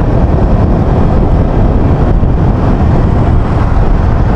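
Steady, loud low rumble of wind and road noise on a moving motorcycle, picked up by an action camera's built-in microphone.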